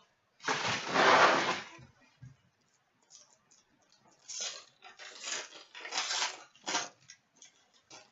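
Trading-card packaging being torn open and handled: a loud tearing rasp lasting about a second near the start, then several shorter crinkling rustles.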